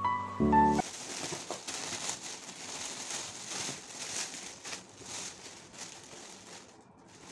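Metallic foil gift wrap crinkling and rustling as it is pulled off a present, in quick irregular crackles that fade toward the end. A few notes of background music end just before a second in.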